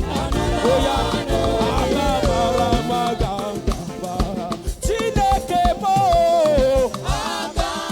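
Live upbeat church praise music: a band with a steady drum beat and a melody line, a voice singing over it.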